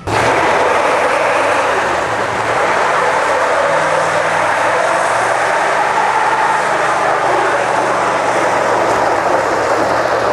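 Ford F-series pickup doing a burnout: the engine is held at high revs while the rear tyres spin and smoke, a loud, steady noise of engine and spinning tyres.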